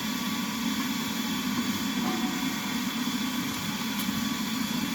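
A forge running with a steady, even rushing hum that does not change.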